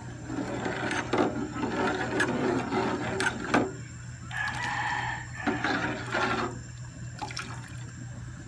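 Metal ladle stirring and scooping a liquid Milo mixture in an aluminium pot, scraping and clinking against the pot with a few sharp knocks. In the middle comes a drawn-out pitched call.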